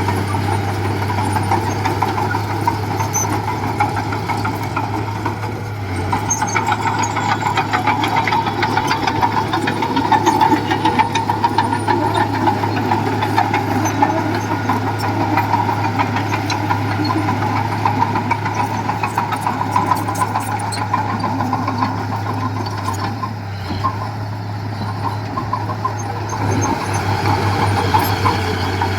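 Diesel engine of heavy earthmoving machinery running steadily, with a dense metallic clatter over it through the middle of the stretch.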